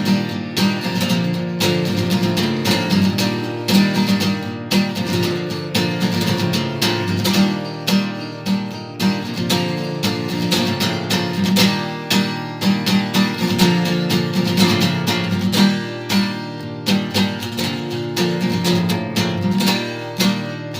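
Instrumental acoustic guitar music, the strings plucked and strummed in quick, steady strokes with no singing.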